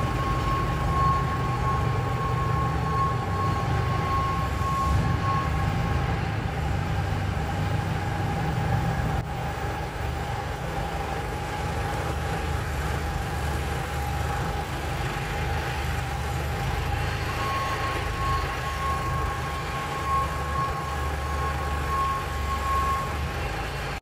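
Deutz F4M2011 four-cylinder diesel of a TUG MA50 baggage tractor running as the tractor drives slowly, with a steady whine over the engine. A high pulsed beeping sounds during the first six seconds or so and again in the last six.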